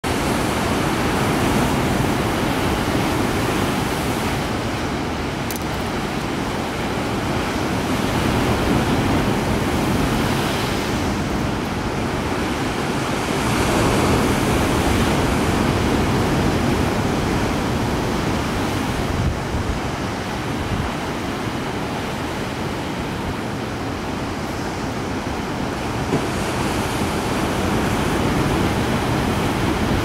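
Ocean surf breaking and washing over a flat rock shelf: a continuous rushing wash that swells and eases every several seconds as waves come in.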